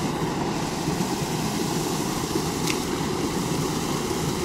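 Steady rush of water pouring over a small concrete weir into a channel, with one brief faint click about two and a half seconds in.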